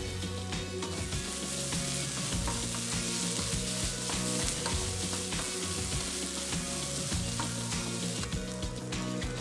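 Julienned potato, carrot and onion sizzling in oil in a nonstick wok while a wooden spatula stirs and tosses them, with scattered scrapes and taps against the pan. The sizzle eases near the end.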